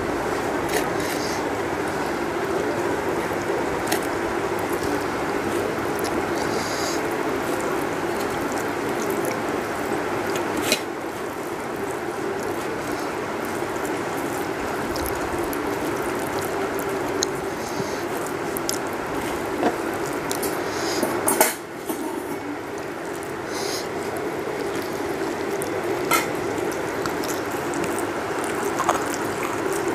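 Steady rushing background noise, with a few light clicks and clinks of fingers working rice and curry on a steel plate.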